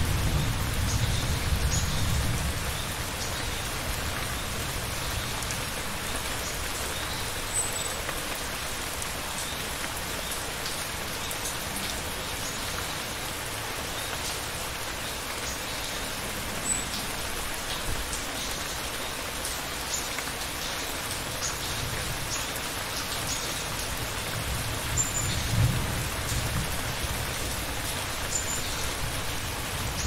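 Steady rain falling, with a low rumble of thunder dying away over the first couple of seconds and another low rumble of thunder swelling up and fading toward the end.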